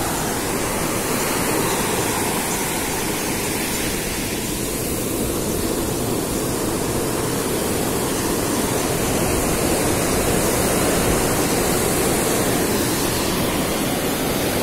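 Steady rush of sea surf and wind.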